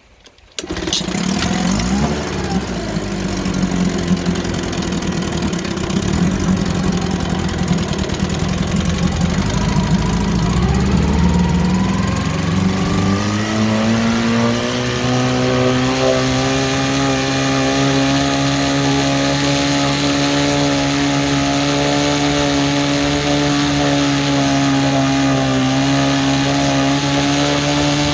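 A 1954 Johnson QD-15 10 hp two-cylinder two-stroke outboard fires up suddenly about half a second in. It runs unevenly, its speed wandering, for around thirteen seconds, then picks up speed and settles into a steady, even run.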